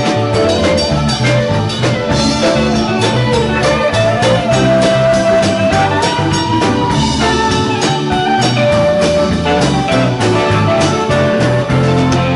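Live rock band of electric guitars, bass guitar and drum kit playing an instrumental jam. A lead line slides and bends up and down over the bass and drums.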